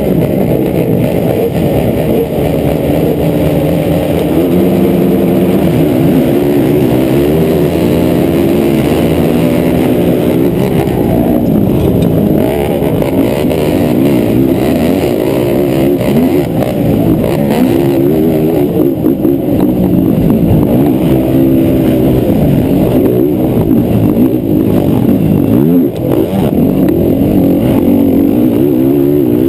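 Racing quad (ATV) engine running hard, its pitch climbing and falling again and again as the throttle is opened and closed.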